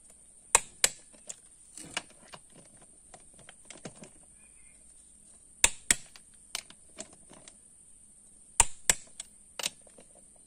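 Socket wrench working an ATV wheel's lug nuts: scattered sharp metallic clicks, the loudest coming in close pairs three times, with fainter ratcheting ticks between.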